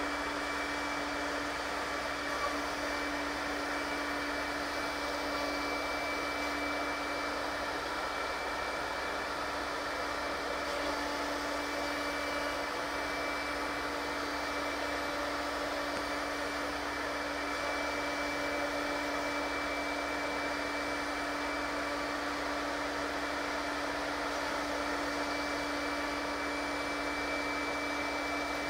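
Multi-spindle CNC oval mortising machine running steadily as it cuts female oval mortises into wooden chair parts. Its spindle motors give a constant hum with a thin high whine over a noisy haze.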